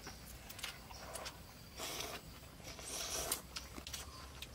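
People slurping and chewing noodles, a run of short slurps at irregular intervals with a few small clicks.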